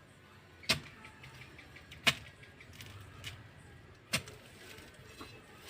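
Three sharp strikes of a hand hoe (mammatti) into soil, about one and a half to two seconds apart, digging up buried sprouted coconuts.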